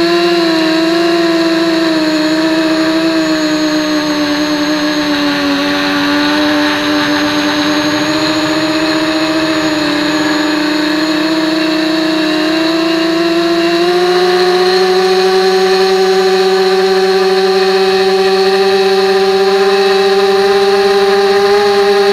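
Motor and propeller of an FPV model aircraft, heard through its onboard 808 keychain camera: a loud, steady whine that sags slightly in pitch a few seconds in, then climbs to a higher, steadier pitch about two-thirds through as the throttle is opened.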